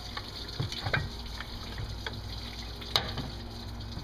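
Coolant trickling and splashing out of the engine where the water pump has just been pried loose, with a few sharp metal clicks and taps, the sharpest about three seconds in.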